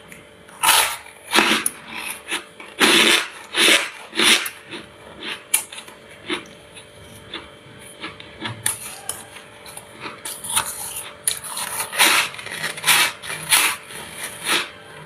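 Freezer frost crunching in a run of short, crisp, irregular bursts, more than a dozen, some close together.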